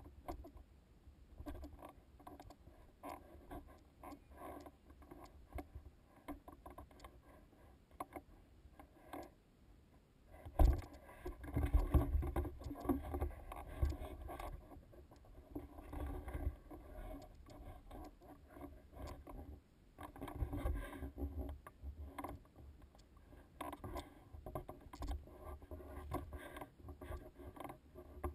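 Footsteps scuffing and crunching on rock and gravel, with the camera rubbing and knocking against the hiker's gear while scrambling over boulders; heavier low rumbling buffets on the microphone about ten seconds in and again near twenty seconds.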